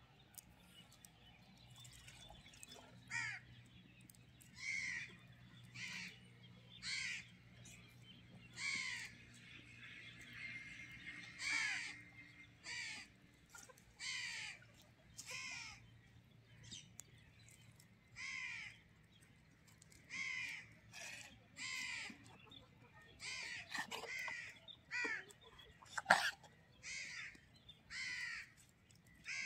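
A crow cawing over and over, one short call every second or two. Near the end a single sharp knock stands out as the loudest sound.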